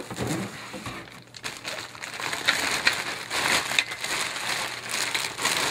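Clear plastic bag crinkling and rustling as a wrapped tripod dolly is handled and lifted out of its cardboard box, with the crackling growing busier about halfway through.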